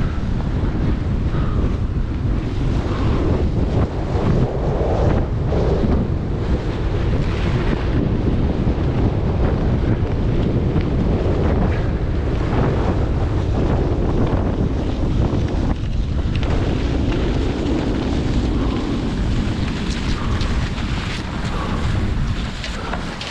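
Wind buffeting the microphone of a camera carried by a cross-country skier on the move, a loud steady rumble, with irregular scrapes of skis and poles on the snow under it.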